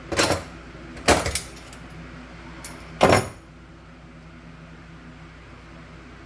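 Three sharp metallic knocks in the first three seconds, the second a quick double, as a tool works at the retainer clip on an old garbage disposal's sink mount. A steady low hum runs underneath.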